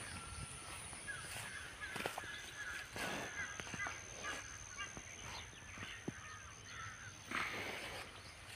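Birds calling several times over a faint, steady high whine, with a few sharp clicks.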